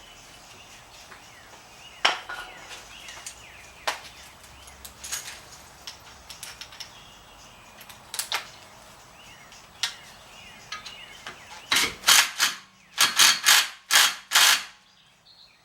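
Hand tools clicking and clinking against metal, then a quick run of about six loud ratchet-wrench strokes near the end, tightening a brake caliper's thread-locked bolts.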